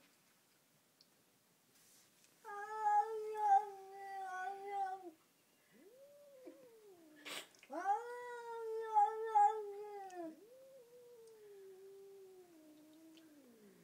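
Domestic cat yowling in long, drawn-out caterwauls: two loud held calls with fainter rising-and-falling ones between and after, the last sliding down in pitch. It is the sound of an upset cat confronting another cat it has found hiding. A single sharp click comes between the two loud calls.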